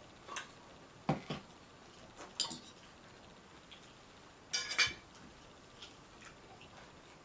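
Scattered light knocks and clinks of tableware and food containers being handled on a table during a meal, about five separate strokes, the loudest pair just under five seconds in.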